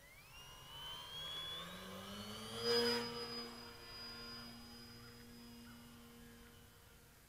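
Multiplex Heron RC motor glider's electric motor and propeller whining under power as the model climbs out after a hand launch. The pitch rises over the first two seconds, it is loudest about three seconds in, then it holds a steady tone and fades away shortly before the end.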